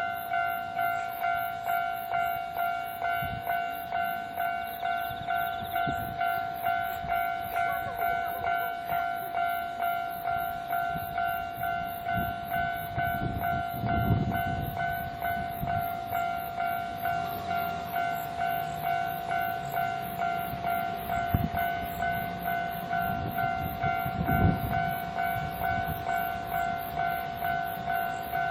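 Japanese level-crossing alarm bell ringing steadily, about two dings a second, while an electric train rumbles through the crossing. The rumble swells with clacks over the rail joints about halfway through and again near the end.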